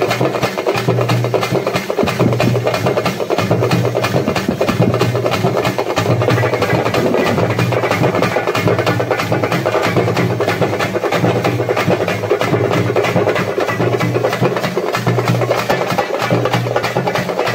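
A group of hand-held drums struck with sticks, playing a fast, dense, unbroken beat, with a low hum underneath that drops out briefly every second or two.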